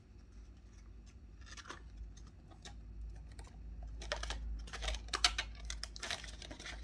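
Paper banknotes and a clear vellum cash envelope rustling and crinkling as bills are handled and flipped through. It is soft and sparse at first, then busier crinkling from about four seconds in.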